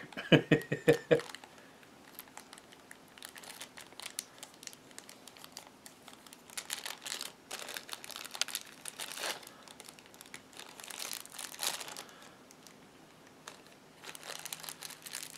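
Small plastic zip-top bag being handled and opened, crinkling in short, scattered bursts.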